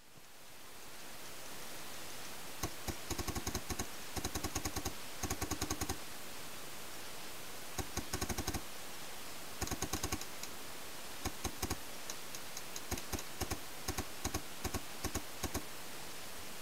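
Paintball markers firing: several rapid strings of shots in the first ten seconds, then scattered single and double shots. A steady hiss lies underneath, fading in at the start.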